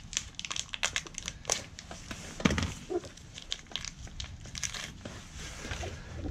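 Plastic packaging crinkling as it is worked open by hand, an irregular run of sharp crackles.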